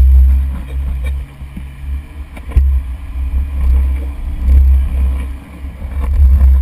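Heavy low rumble surging and fading irregularly, typical of wind buffeting a microphone mounted on an open vehicle, with a single sharp knock about two and a half seconds in.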